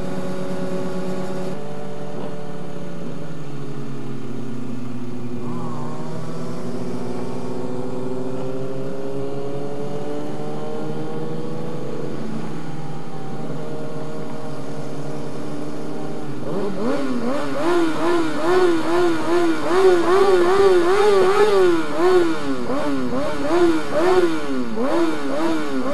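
Sport motorcycles riding in a pack: the engines run at a steady cruise with slowly gliding pitch, then about two thirds in several bikes start revving up and down over and over, louder and choppier.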